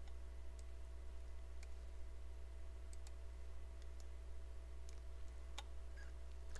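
A handful of scattered computer mouse clicks over a steady low electrical hum.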